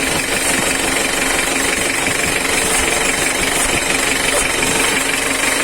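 1995 Isuzu Panther engine running steadily with a fast, even rattling knock: the strange engine noise being checked.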